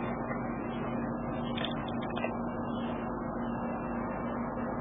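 A steady low hum over a continuous hiss of background noise, with a few faint short scratchy sounds in the middle.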